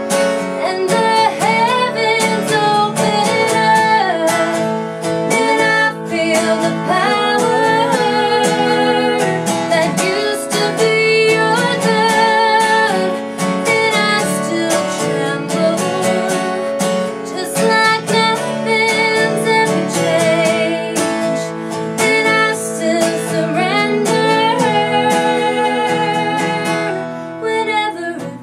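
A woman singing a slow country song with vibrato over a strummed acoustic guitar, a live acoustic performance; the playing eases off near the end.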